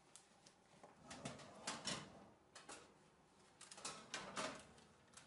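Metal baking tray sliding out of an oven on its wire rack, faint, with two short runs of scraping clicks and clatters.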